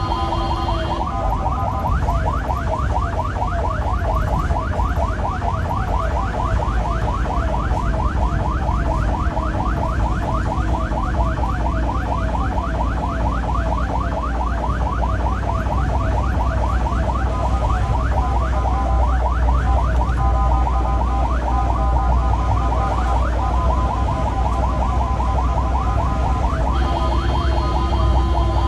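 Ambulance siren on a fast yelp, sweeping rapidly and evenly over and over, with the low rumble of the ambulance's engine and tyres underneath, heard from inside the cab. A steady held siren tone sounds briefly at the start and comes back near the end.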